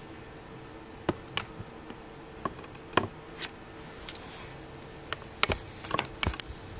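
Orange plastic ladle knocking and scraping against a plastic bucket and small plastic tubs while thick olive-oil soap batter is scooped and dropped into them: scattered clicks and taps, several close together near the end, over a faint steady hum.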